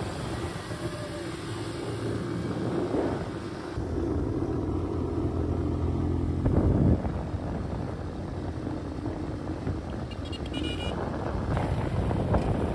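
Small motorcycle engine running steadily while riding, with road and wind noise; the sound changes abruptly about four seconds and about eleven seconds in.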